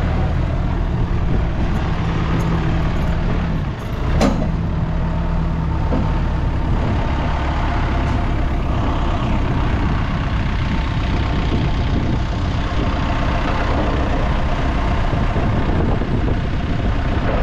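Heavy diesel engines of a lorry and a loader running steadily at idle. A single sharp sound comes about four seconds in.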